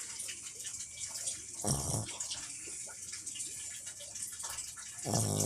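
Snoring in deep sleep: two low, buzzing snores about three and a half seconds apart, with soft breathing hiss between them.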